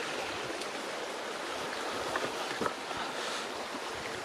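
Creek water running steadily, with a couple of faint clicks about two and a half seconds in.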